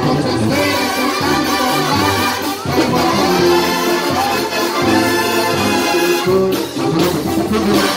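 Live Mexican banda music: trumpets and trombones playing over a tuba and a steady beat.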